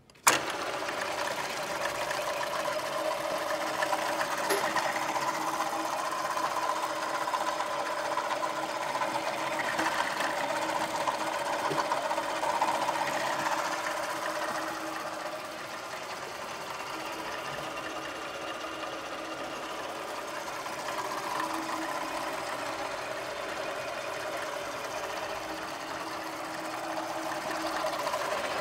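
Startrite five-speed pillar drill switched on at its push-button starter with a click, its electric motor and spindle then running steadily with a even hum and whine, the chuck spinning free with no load.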